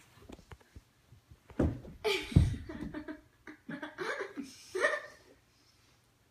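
A woman's muffled, sputtering laughter through a mouthful of marshmallows, in irregular bursts with gasping breaths, loudest about two seconds in. It sounds close enough to choking to be mistaken for it.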